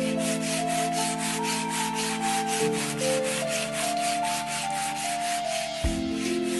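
Sandpaper rubbing back and forth on a 3D-printed PLA part in quick, even strokes, about six a second, fading out near the end.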